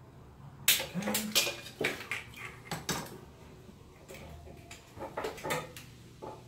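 Metal tools and parts clinking and clanking as hands work in a car's engine bay: a quick run of sharp knocks in the first three seconds, then a few more spaced out.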